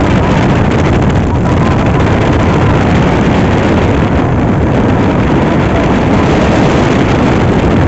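Steady, loud engine and road noise of a moving vehicle, a dense rumble strongest in the low end.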